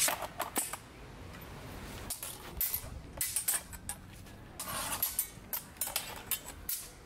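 Steel training swords clashing against each other and against small round steel bucklers: sharp metallic clinks and clanks coming in several quick clusters.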